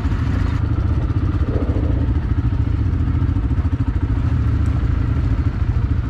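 Quad bike engine running steadily while riding off-road, a fast, even low pulsing with some clatter.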